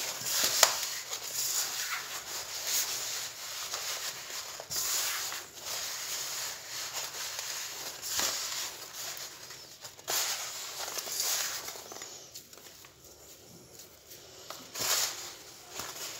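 Bare hands rubbing and crumbling a dry semolina and date mixture against a metal pan, giving uneven rustling and scraping strokes that ease off for a couple of seconds after the middle.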